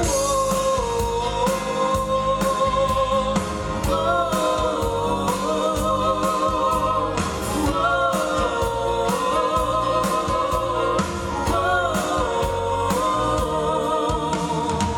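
A male and a female singer holding long, wavering sung notes in a live musical-theatre ballad. They are backed by a band with keyboard, violin and cello and a steady beat.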